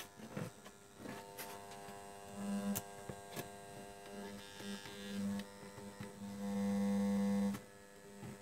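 Electric hum of a transformer soldering gun heating a solder joint, swelling in short spells and loudest for about a second near the end before cutting off suddenly, with a few faint clicks.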